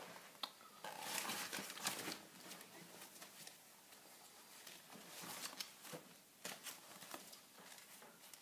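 Faint rustling and crinkling of a glossy magazine handled by a toddler in bed, in short bursts, loudest about one to two seconds in.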